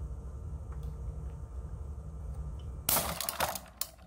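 Yo-Zuri Super Braid 8-strand 20 lb braided fishing line snapping under tension about three seconds in: a sudden sharp crack followed by a couple of clattering knocks. The line has reached its actual breaking strength, about 43 lb on the scale.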